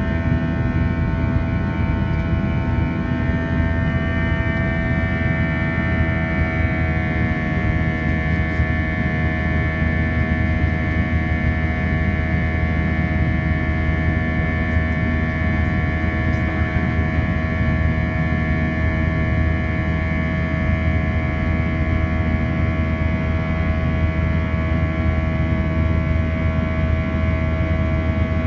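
Airbus A321 cabin noise during climb after takeoff, heard from a window seat just ahead of the wing engine: a steady turbofan drone carrying several steady whining tones. The upper tones shift slightly in pitch about five to six seconds in.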